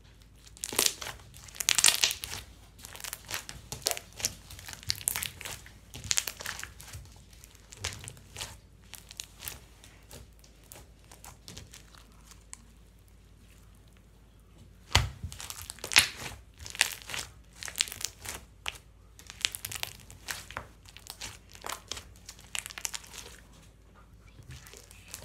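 Crinkling and crumpling of something being handled, in irregular bursts of sharp crackles, with a pause of a few seconds about halfway through.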